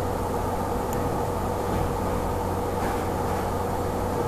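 Steady background hum and hiss of the recording with no speech: an even noise with a low hum and a faint constant higher tone running through it, unchanging.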